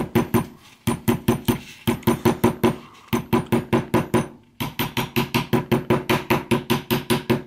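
A hammer tapping a steel bearing retaining ring down into the driver of a Sturmey-Archer AW three-speed hub, seating it over the greased ball-bearing cage. The light metallic taps come quickly, about seven a second, each with a brief ring, in runs separated by short pauses.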